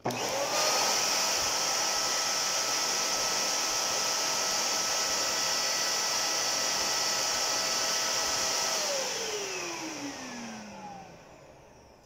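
600-watt ATC bagless vacuum cleaner motor switched on, its whine rising to full speed within half a second, then running steadily with a loud rushing of air. About nine seconds in it is switched off and the whine falls as the motor spins down.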